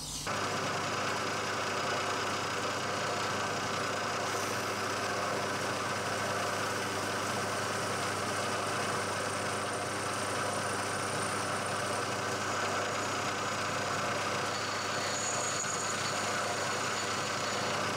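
Milling machine running steadily while an end mill side-cuts an aluminium block: a constant machining hum with several steady tones.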